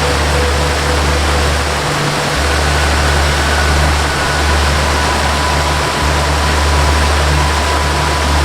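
Steady rush of a waterfall under a soft melody of long held low notes that change every few seconds, with a few faint higher held tones.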